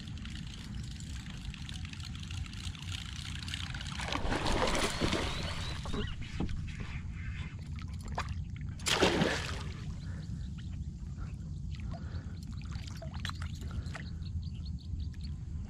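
A hooked giant snakehead thrashing and splashing at the water's surface: a longer burst of splashing about four seconds in, a sharper, louder one about nine seconds in, and smaller splashes between.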